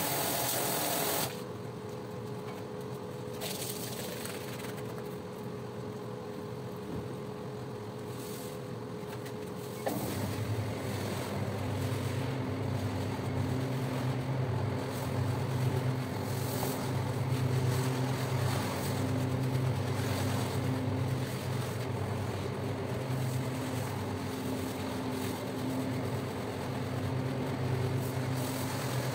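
Single-disc rotary floor scrubber running on a wet, soap-foamed rug: a steady low motor hum under the noise of the brush scrubbing the shampoo. It starts about ten seconds in, after a quieter stretch with a faint steady hum.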